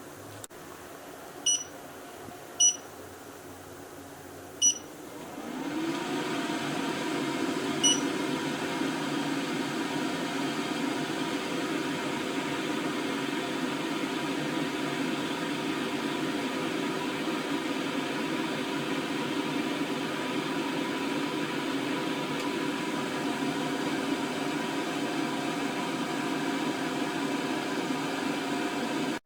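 Air fryer being set and switched on: four short electronic button beeps, then its fan spins up with a rising whir a little after five seconds and settles into a steady running hum.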